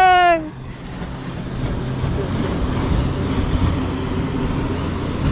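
Small motorboat's engine running with a steady hum as it passes offshore. A loud, steady-pitched horn-like tone cuts off, dropping slightly in pitch, about half a second in.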